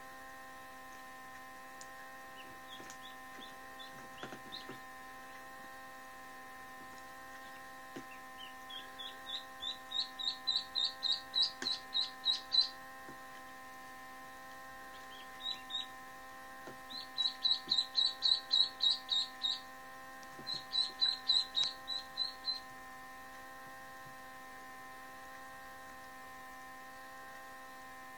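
Indian Runner/Khaki Campbell cross duckling peeping as it hatches: several runs of quick, high peeps, about four a second, the first run climbing in pitch, with pauses between. A steady hum runs underneath.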